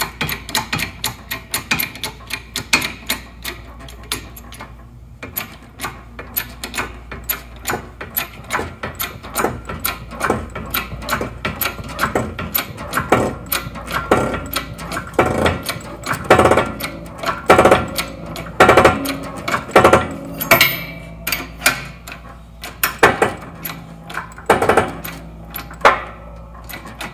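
Hydraulic shop press being pumped to press a new bearing onto a transfer-case gear shaft: a run of sharp metallic clicks and clanks, with heavier strokes about once a second in the second half as the bearing is driven toward its seat.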